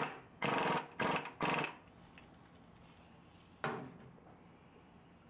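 Impact wrench tightening the nut on the front variator sheave of a 150cc go kart's belt-drive CVT, in short rapid rattling bursts: one at the start and three more within the first two seconds, then one brief burst near four seconds in.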